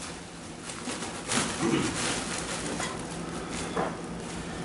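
Faint rustling and scraping as 2.5-inch sound-attenuating supply tubing, its end bagged in plastic, is pulled down through a hole in a plaster ceiling, with soft brushing sounds about a second in and again near the end.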